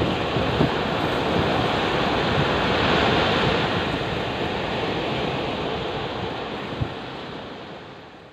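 Rough surf breaking and washing up the beach in strong wind, with wind buffeting the microphone. The wash swells about three seconds in and fades out near the end.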